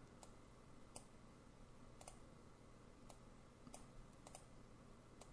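Faint computer mouse clicks, about eight, spaced irregularly, as photo frames are selected and dragged, over near silence.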